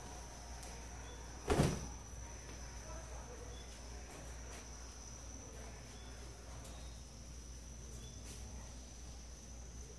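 Laundry being pulled off a clothesline and folded: one sharp snap of fabric about one and a half seconds in, then faint rustling of clothes being handled. A steady high-pitched insect sound runs underneath.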